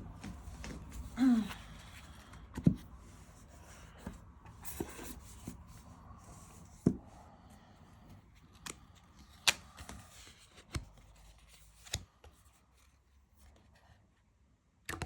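Tarot cards and their cardboard box being handled: scattered sharp clicks and taps with light rustling of card stock, quieter near the end.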